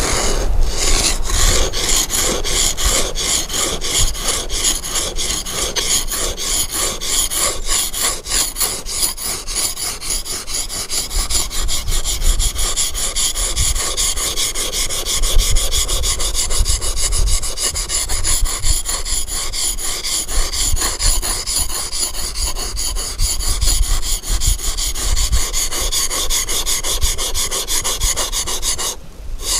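Steel chisel blade being rubbed back and forth on a whetstone in quick, continuous strokes, a gritty scraping that pauses briefly near the end.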